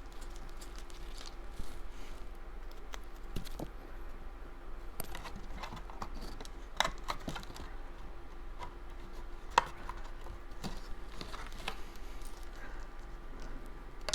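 Light taps, clicks and rustles of cardstock pieces being handled and pressed together by hand, with two sharper clicks about seven and ten seconds in, over a faint steady hum.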